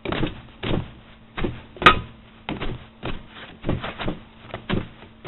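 Sawdust being rammed down inside a metal popcorn tin with a tool: a steady run of dull thumps, about two a second, packing the fill tight around the stove pipe. About two seconds in, one louder knock rings briefly where the tool strikes the tin.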